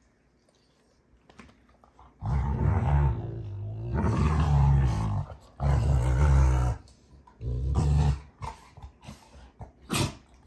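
Two Rottweilers play-fighting, growling in long low stretches that begin about two seconds in and break off into shorter growls near the end, with a brief sharp click just before the end.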